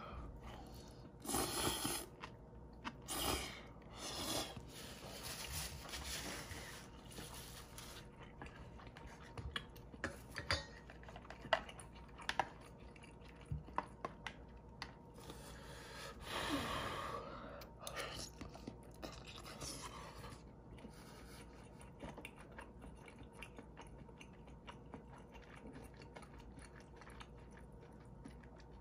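Close-up eating of a bowl of instant ramen with dumplings: chewing, with several short noisy slurps of noodles or broth in the first few seconds and again near the middle, and scattered sharp clicks.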